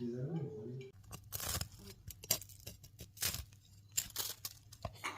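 Sharp, crisp crunches and tearing, about one a second, as someone bites into crunchy food, with a short voice sound at the start.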